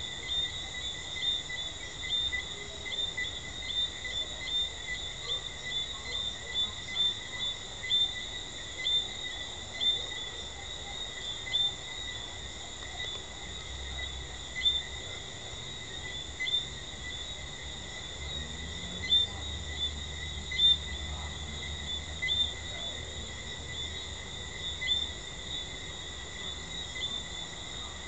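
Night chorus of Jamaican treefrogs: short, sharp, high chirping calls repeated irregularly, several a second in the first half and sparser later, over a steady, unbroken high ringing chorus.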